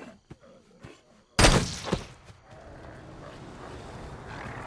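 A sudden loud thud about a second and a half in, a smaller hit half a second later, then a low steady rumble that slowly swells.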